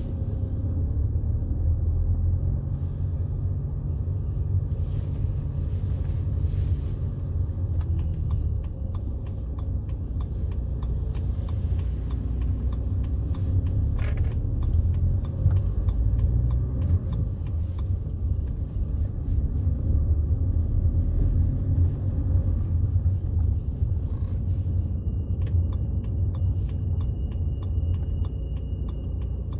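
BMW 320d E91's 2.0-litre four-cylinder M47D20 turbodiesel running while the car is driven, with a steady low rumble of engine and road noise from inside the cabin.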